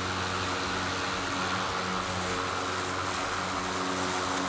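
Ryobi 40-volt brushless cordless lawn mower running steadily while cutting thick grass at its lowest height setting: an even electric hum with a whooshing hiss from the spinning blade.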